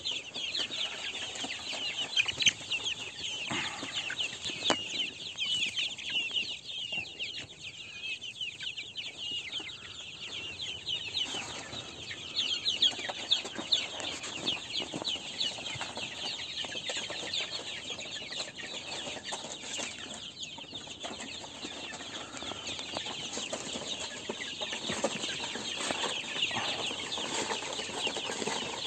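A pen full of young chickens peeping without a break, many high chirps overlapping into a constant chatter.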